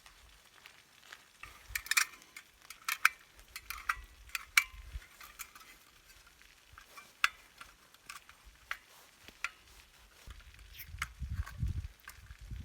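Scattered sharp clicks and light ticks, irregular and thickest a couple of seconds in, with a low rumble starting about ten seconds in.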